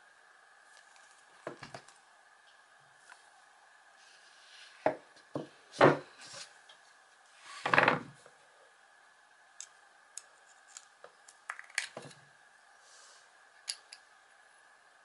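Small metal tools (needle-nose pliers, then a small screwdriver) clicking and scraping against the thin metal case of a small AC gear motor as its cover is pried open. The sound is a cluster of scrapes and knocks about a third of the way in, the loudest near the middle, followed by scattered light ticks.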